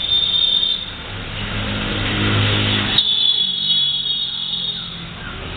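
A motor vehicle's engine running, swelling in level over the first three seconds and then fading away. A single sharp click comes about three seconds in.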